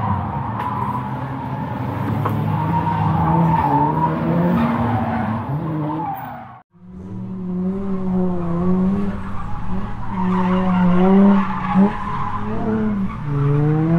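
A vehicle engine revving, its pitch going up and down in short blips. The sound breaks off abruptly for a moment about halfway through, then the revving resumes and climbs near the end.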